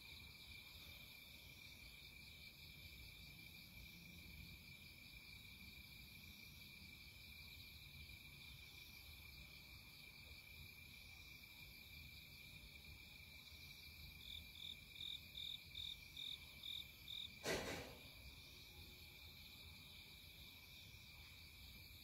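Faint, steady trilling of crickets and other insects in a rural soundscape. About two-thirds through comes a short run of evenly spaced chirps, about two a second, followed by one sharp knock.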